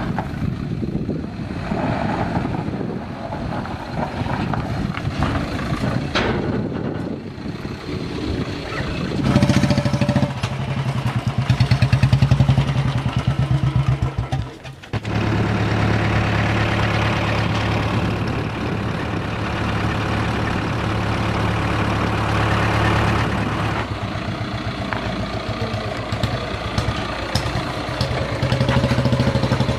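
Motorcycle engine running under way, with rough road noise. It gets louder for a few seconds about a third of the way in, drops off for a moment near the middle as the throttle is cut, then runs steadily again.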